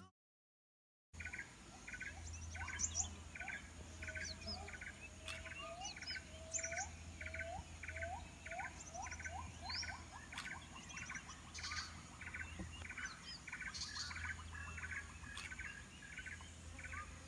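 Rainforest dawn chorus: a bird call repeated about twice a second, over a series of short rising whistled notes and scattered high chirps, with a steady low hum underneath. It begins after about a second of silence.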